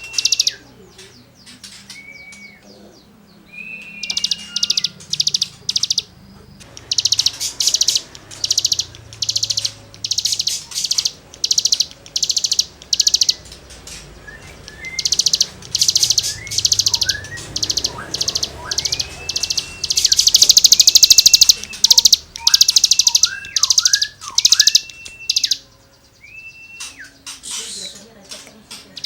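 Cigun songbird singing in rapid bursts of harsh, buzzy rasping notes, the 'gesekan' type of song, mixed with short whistled slurred notes, about two phrases a second, loudest in the middle.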